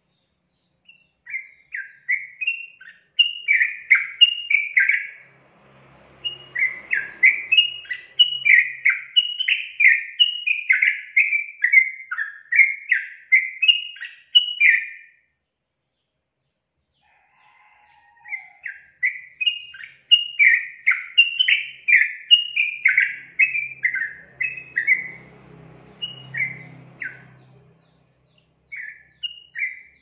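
Yellow-vented bulbul singing: two long runs of quick, chattering notes, breaking off for a few seconds near the middle, with a few more notes near the end.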